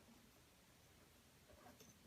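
Near silence: room tone, with a few faint rustles of paracord being handled near the end.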